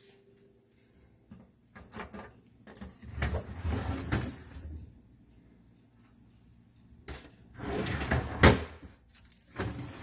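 The plastic crisper drawers of a Samsung Family Hub refrigerator being slid open and pushed shut: a sliding rumble with knocks, in two main stretches about three and eight seconds in, the second ending in a sharp knock.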